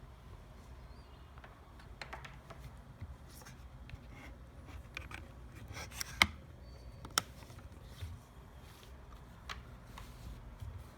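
Hands handling a wireless charger and its packaging: scattered rustles and light clicks, with two sharp clicks a second apart past the middle.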